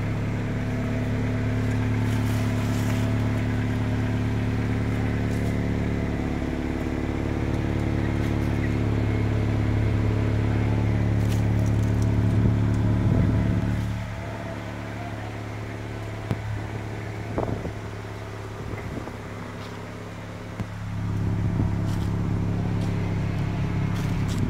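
1994 Acura Integra's non-VTEC B18 four-cylinder engine idling steadily. It drops in level for several seconds past the middle and comes back up near the end.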